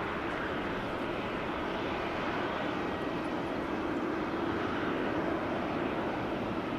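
Boeing 747-400's jet engines running, a steady rushing engine noise with a faint steady whine.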